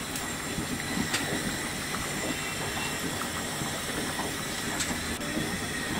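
Steady sizzling hiss of rice frying in oil in a large pot on the stove, with a couple of faint clicks.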